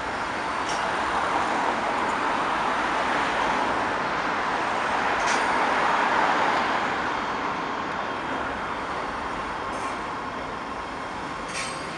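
Electric commuter train rolling across a steel overpass overhead: a steady running noise of the cars passing, growing loudest about six seconds in and then easing off, with a few brief high clicks from the wheels.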